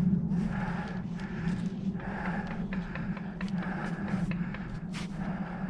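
A player's heavy, rhythmic breathing close to the microphone, about two breaths a second, with a sharp click near the end.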